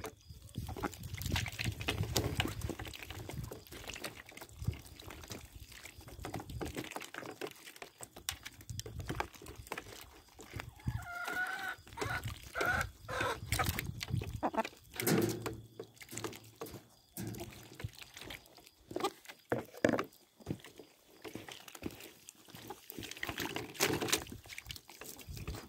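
Hens and geese feeding from a metal tray of soaked bread in water: repeated pecking and dabbling clicks and small splashes, with hens clucking and a few wavering calls near the middle.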